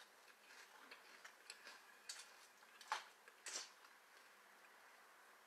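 Faint sounds of someone eating cereal from a bowl with a bamboo-coconut spoon: a few light clicks and taps, the two loudest about three and three and a half seconds in.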